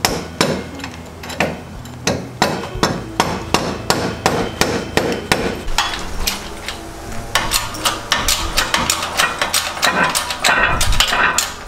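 Mallet tapping an axle seal into the end of an AMC 20 axle tube: sharp strikes about three a second. From about seven seconds in, metallic clicks and clanks as a 12-ton shop press's bottle jack is pumped to press a wheel bearing onto the axle shaft.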